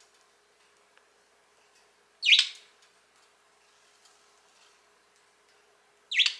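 Budgerigar giving two short, loud chirping calls about four seconds apart, each sliding down in pitch.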